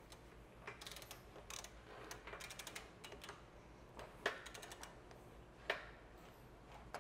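A torque wrench's ratchet head is spun by hand on a harmonic damper bolt, its pawl clicking faintly in quick runs. Two sharper clicks follow later.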